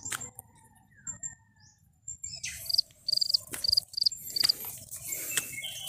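Forest ambience: a small creature chirping, about six short high chirps at roughly three a second in the middle, over light knocks and rustling from walking.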